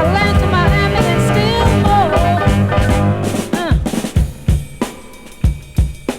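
Funk soul record playing: a full band with sliding lead lines, then about three and a half seconds in the band drops out to a sparse drum break of separate snare and kick hits.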